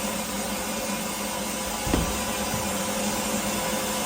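Steady drone of shop machinery running, with a constant hum in it, and one dull thump about two seconds in.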